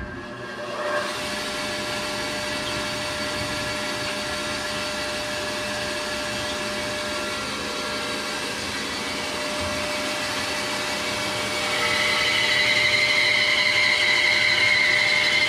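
Bandsaw starting up and running steadily. About twelve seconds in its blade starts cutting into a dogwood limb, and the sound gets louder and higher.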